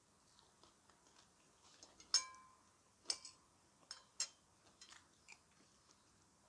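Quiet eating sounds: chewing, with a few sharp clicks about a second apart, two of them short ringing clinks of a spoon against a plate.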